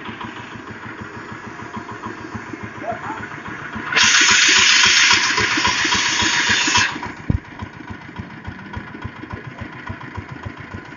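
Small 6.5–7 hp diesel engine driving a compost trommel screen, running with a steady rapid chug. About four seconds in, a loud hiss comes in for nearly three seconds and cuts off, followed by a single knock.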